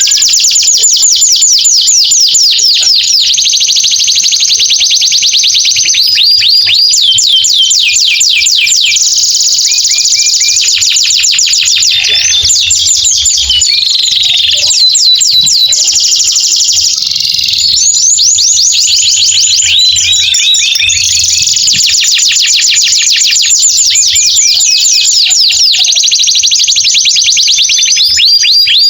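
Male domestic canary singing a long, unbroken song of fast trills: runs of rapidly repeated short high notes that switch to a new note pattern every second or two.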